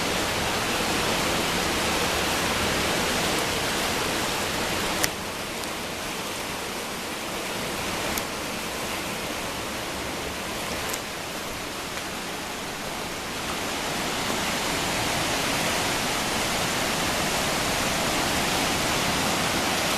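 Steady rushing of a river in flood, dipping slightly in the middle, with a few short sharp clicks about five, eight and eleven seconds in.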